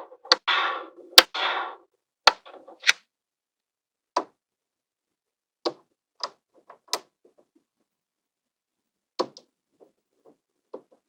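Small magnetic balls clicking as they snap together, with a rattling clatter of balls in the first two seconds, then single sharp clicks every second or so.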